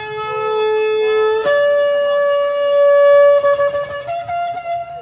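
Shofar (ram's horn) blown in long blasts. A held note ends about a second and a half in, then a higher blast is sustained for a couple of seconds and breaks into a higher, wavering note near the end.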